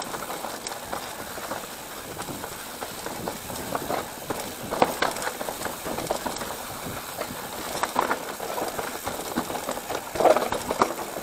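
Mountain bike rolling downhill on a dirt singletrack, its chain and frame rattling and clattering over roots and rocks while the tyres crunch on the dirt. There are louder jolts about five seconds in, around eight seconds and again near the end.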